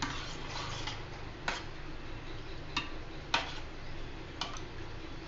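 A metal spoon stirring curd in a glass bowl: soft scraping at first, then a few separate sharp clinks of the spoon against the bowl.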